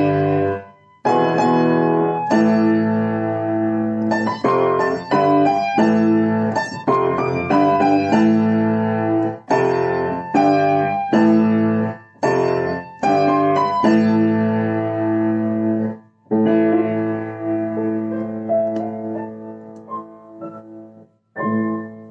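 Piano music: phrases of struck chords and notes with brief pauses between them, dying away near the end with one last chord.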